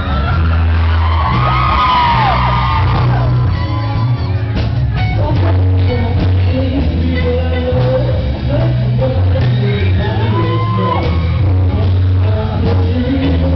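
Live rock band playing loudly with a heavy bass line and a singer on microphone, with high shouts rising over the music about a second in and again near the end.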